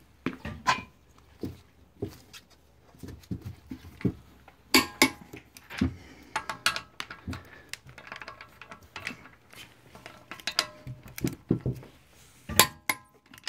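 Socket and long-handled wrench clicking and clinking on a car wheel's lug bolts as they are tightened down. The sharp metal clicks come irregularly, a few of them ringing briefly; the loudest fall about five seconds in and near the end.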